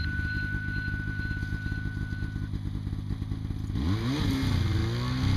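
A motor vehicle engine running at a low, steady rumble, then revving up and back down about four seconds in before settling into a steady run.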